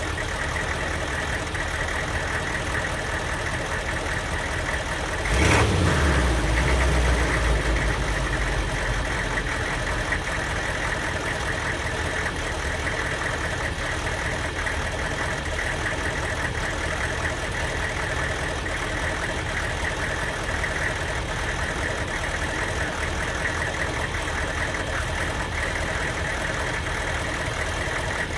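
Diesel van engine idling with a misfire, which the owner blames on an aftermarket KOJO computer tune. About five seconds in there is a sudden louder surge with a deeper rumble that settles back to the steady idle over a few seconds.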